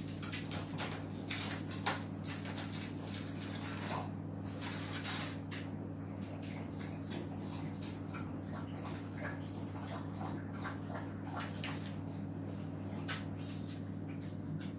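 Hotpoint front-loading washing machine running a wash cycle: a steady low motor hum, with soapy water sloshing and splashing in the turning drum in short, irregular bursts.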